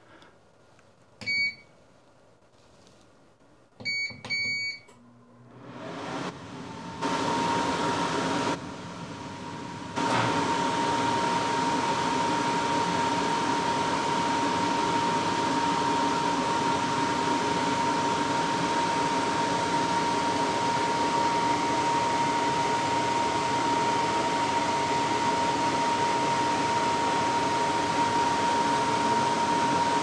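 COLZER commercial dehumidifier being switched on: its control panel beeps once, then twice a few seconds later. About six seconds in the fan starts, building up in steps, and from about ten seconds on the unit runs loudly and steadily, a rush of air with a constant whine.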